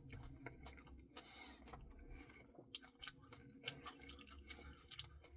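Faint mouth sounds of eating a Dairy Queen Blizzard: soft chewing with scattered small clicks and wet smacks.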